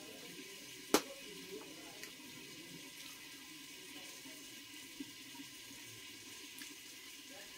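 A pot simmering over a wood fire: a steady low bubbling hiss. A sharp click about a second in and a smaller one about five seconds in.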